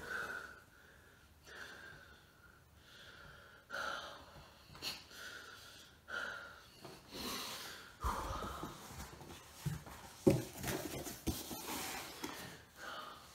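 A man breathing hard with his head inside a cardboard box, a string of short, wheezy breaths about one a second. In the second half the box rustles and knocks as it is handled and lowered.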